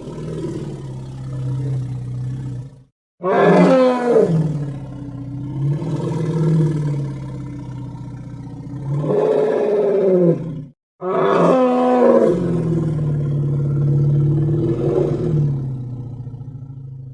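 African forest elephant calls: long, low roaring rumbles with a strong onset that falls in pitch, then settles into a steady low drone. Three calls are heard, broken by short, abrupt silences about 3 and 11 seconds in.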